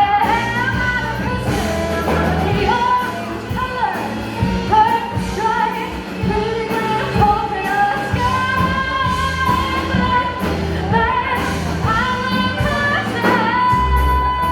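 A singer performing a song with live band accompaniment, sung lines and long held notes over a steady bass and beat.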